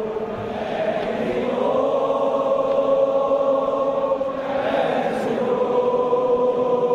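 Large crowd of football supporters singing a chant in unison, many voices holding long notes together.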